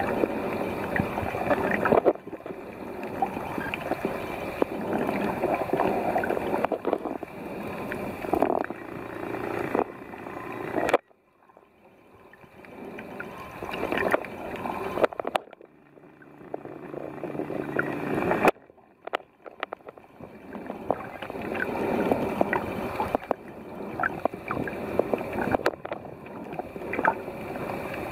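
Water noise picked up by a camera underwater: steady sloshing and gurgling, with a few faint clicks. It drops away suddenly about eleven seconds in, stays low for several seconds, then returns sharply.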